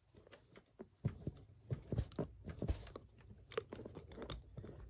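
Hand driver turning a long screw out of an RC truck's wheel hub: irregular small clicks and creaks.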